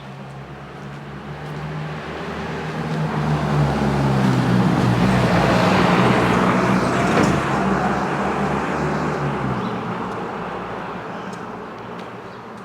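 A motor vehicle drives past on the road. Its engine and tyre noise grow steadily louder to a peak about halfway through, then fade away.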